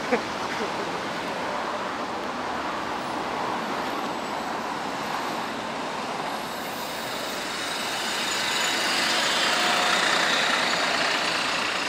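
Road traffic noise: a steady hiss of passing vehicles, swelling as one goes by about eight seconds in and easing off near the end.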